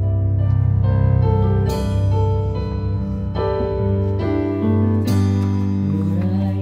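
Les Paul-style gold-top electric guitar playing a slow, clean melody with long sustained notes, a new note every second or two, over a keyboard-like accompaniment with a steady low bass note.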